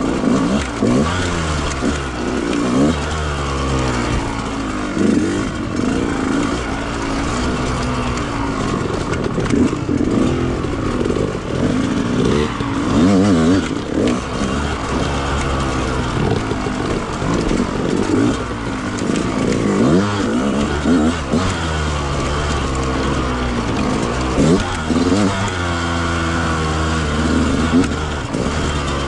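Two-stroke 125 cc single engine of a 2020 Yamaha YZ125X dirt bike revving up and dropping back again and again in short pulls as the throttle is opened and closed.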